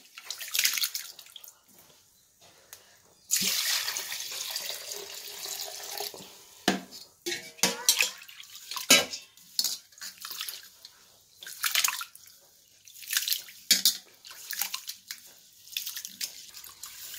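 Seeraga samba rice being washed by hand in a steel vessel: water sloshing and splashing as the grains are stirred, with a steady stretch of water pouring starting about three seconds in, then more irregular splashes.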